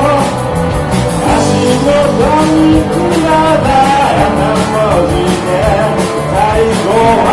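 Live rock band playing a song: drums keeping a steady beat under bass and electric guitars, with a bending lead melody line on top.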